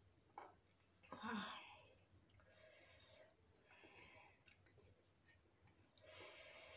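A person breathing out hard through the mouth in soft hissing puffs against the burn of hot chillies, with a short sharp catch in the throat about a second in.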